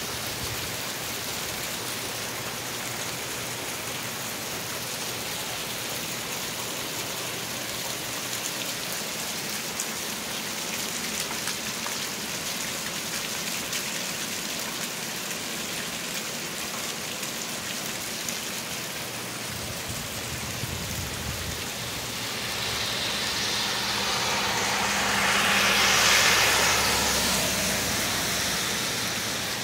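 Steady rain falling on pavement and a wet street. Near the end a vehicle passes on the wet road, its tyre hiss swelling and then fading.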